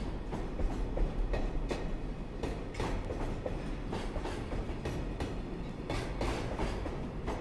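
Container flat wagons of a freight train rolling past as the train pulls out of the station. Their wheels clatter over the rail joints in a steady run of clicks over a low rumble.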